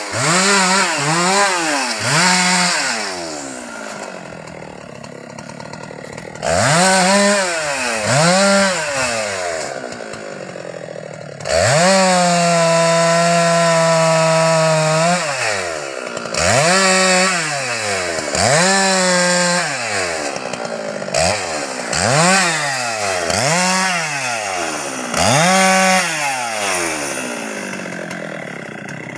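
Husqvarna 390XP two-stroke chainsaw revved in repeated short throttle blips that rise and fall back to idle. Near the middle it is held at full throttle for about three seconds while cutting through a teak branch.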